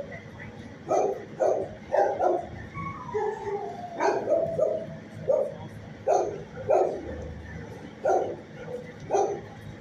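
Dogs in a shelter kennel barking and yipping in short, irregular calls about once a second, with one falling whine about three seconds in.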